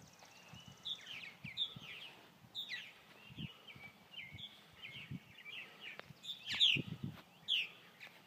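Purple martins chirping and chattering, with many short overlapping calls and a few quick falling notes. Low thuds sound underneath.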